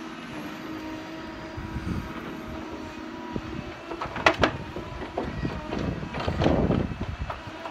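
Tracked forestry harvester's engine running steadily as its boom and felling head work at ground level, with a couple of sharp knocks about four seconds in.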